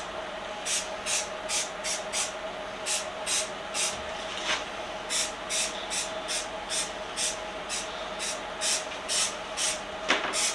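Aerosol spray paint can spraying in short rapid bursts, about two hisses a second, over a steady faint hum.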